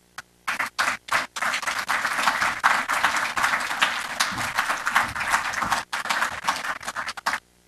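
A small audience applauding: a few scattered claps at first, filling out after about a second and a half into steady applause that stops abruptly near the end.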